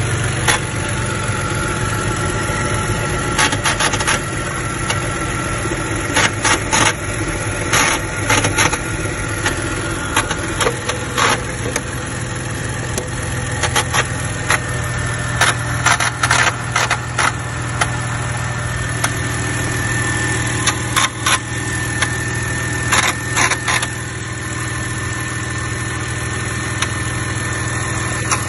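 BMW car engine idling steadily, with a high steady whine and irregular sharp clicks over the running. It is an engine noise whose source the owner cannot locate.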